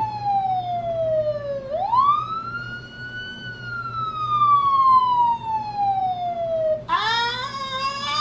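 Police car siren in a slow wail: a single tone falls slowly, sweeps sharply back up about two seconds in, then falls slowly again for several seconds. Near the end a loud voice cuts in over it.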